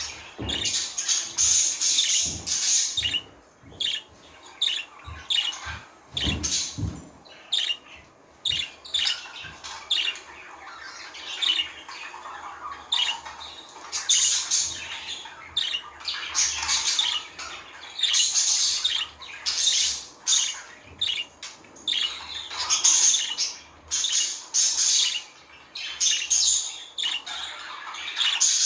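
Budgerigars chirping and chattering in rapid, continual bouts, with harsher squawks mixed in and brief lulls between bouts.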